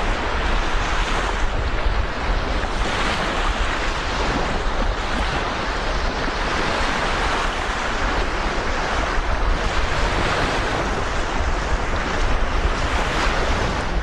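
Black Sea surf washing onto the beach, with wind rumbling on the microphone; steady throughout.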